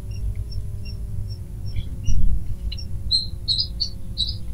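Small birds chirping: short, high chirps scattered throughout, thickening in the second half. Underneath runs a steady low room rumble, with a brief low bump about two seconds in.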